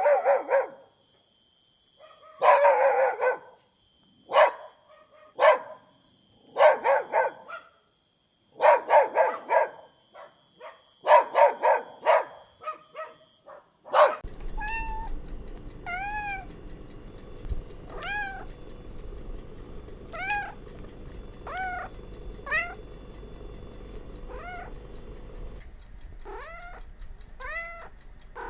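A dog barking in irregular bursts. About halfway through, after a cut, a cat meows repeatedly: short calls that rise and fall in pitch, one every second or two.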